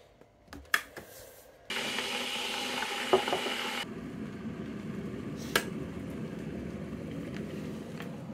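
Russell Hobbs electric kettle switched on with a click, then heating water. A loud hiss starts suddenly and cuts off after about two seconds, then gives way to a lower, steady rumble. A sharp clack comes about five and a half seconds in.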